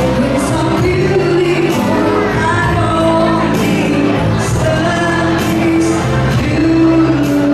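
Live band playing a romantic pop song, a singer holding a sung melody over a steady bass line and cymbal strokes.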